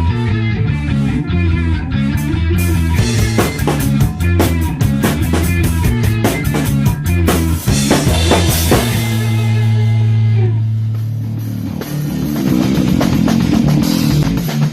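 Rock band playing during a soundcheck: a drum kit hitting fast and hard under low electric guitar and bass riffing. About nine seconds in the band holds one long low chord that fades, then the drums and riff come back in lighter near the end.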